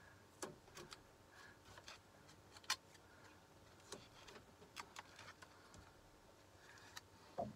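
Faint scattered clicks and light taps of small objects being handled on a work surface, with one sharper click about two and a half seconds in.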